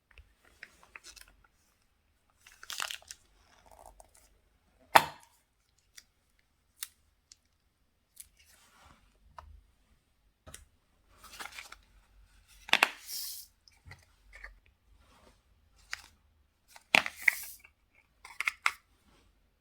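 Slime being squeezed and worked by hand: irregular sticky crackles and clicks, with a few sharp, loud pops about five, thirteen and seventeen seconds in.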